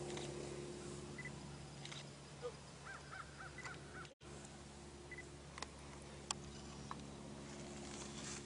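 Faint beeping and clicking of a digital camera: a few short single high beeps spread through, and a few sharp shutter clicks in the second half, over a steady low hum. A brief run of high chirps comes about three seconds in.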